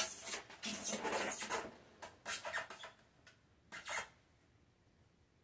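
Handling noises: rubbing and scraping as an oscillating multi-tool is set down against a styrofoam cooler box, with a few shorter rubs and scrapes after the first couple of seconds. The tool is not running.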